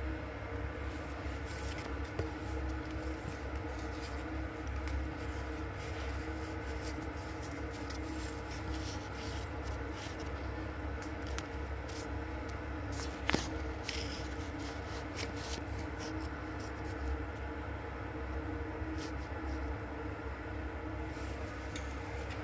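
Light scraping and clicking of handling over a steady low hum, with one sharper click about 13 seconds in.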